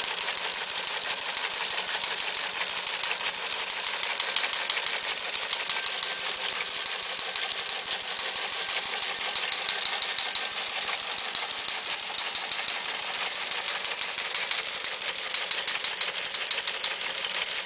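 Teletype Model 28 receive-only printer clattering steadily as it prints incoming text at 60 words per minute, a dense run of rapid mechanical clicks and rattles.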